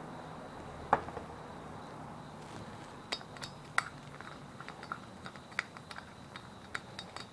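Small metal clicks and taps of a T-handle socket and bolt against an aluminium clutch hub as the bolt is turned in, with one sharper knock about a second in and a run of irregular light clicks from about three seconds in.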